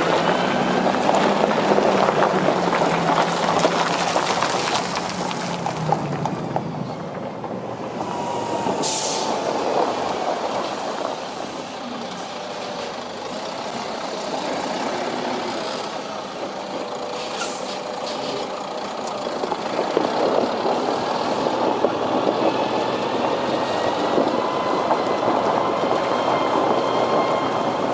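Heavy truck running steadily, with two short, high hisses, about nine seconds in and again past halfway.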